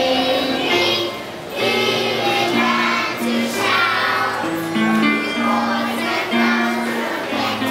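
Children's choir singing, accompanied by an electronic keyboard playing sustained chords and a bass line under the voices, with a short break between phrases about a second in.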